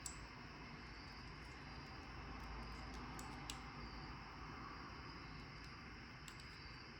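A few faint, sharp clicks of small metal padlock parts being handled and tapped during disassembly of a Paclock 90A-Pro, over steady low room hiss. There is one click at the start, two about three and a half seconds in, and a couple more a little over six seconds in.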